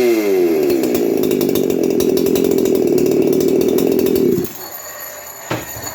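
Clone Stihl MS 372 two-stroke chainsaw with a dual-port muffler running wide open. Its pitch drops over the first second, holds steady, and then cuts off abruptly about four and a half seconds in. A single short knock follows near the end.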